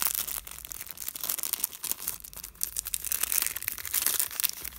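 Holographic foil pouch crinkling and rustling as hands pull it open, a steady stream of irregular crackles.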